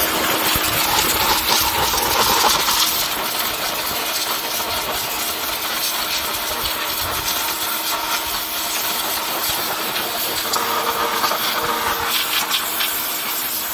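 SCA 1450 psi electric pressure washer running, its pump motor humming steadily under the loud hiss of a fan-pattern water spray.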